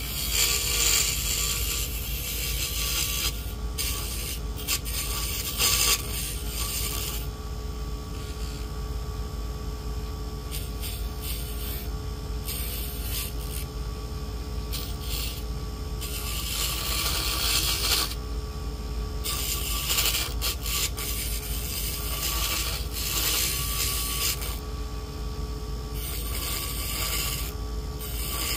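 Vevor mini woodworking lathe's small motor running steadily, with a tool scraping against the spinning wood on and off.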